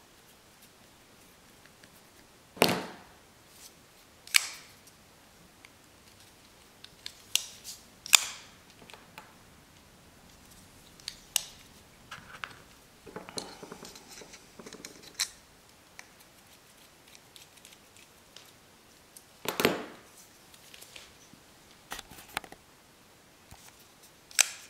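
Scattered sharp clicks and taps from handling a folding knife, an Extrema Ratio BD4 Lucky, with its small metal parts and a screwdriver during reassembly. There are about ten clicks in all, with a short scraping rustle in the middle.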